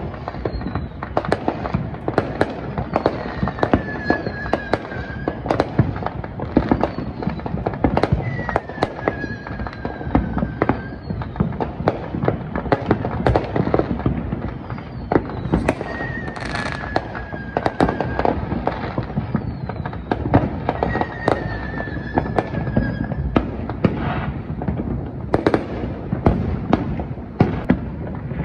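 Many fireworks going off across a city, a dense, continuous run of bangs and crackles with no let-up. Several long whistles, each sagging slightly in pitch, rise above the popping now and then.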